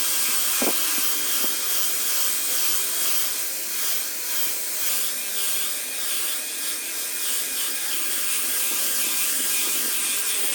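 Makita 9403 4x24 belt sander running steadily with its belt on wood, a continuous whine and hiss with a faint regular pulsing.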